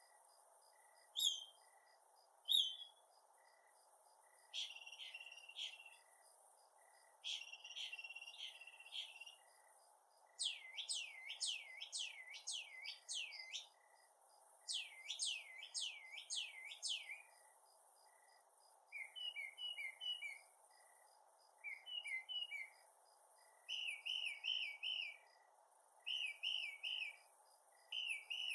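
Northern mockingbird singing a long run of varied phrases, each repeated several times before it switches. A few sharp single chips give way to buzzy notes, then series of steeply falling whistled notes, then quick chattering notes in short groups.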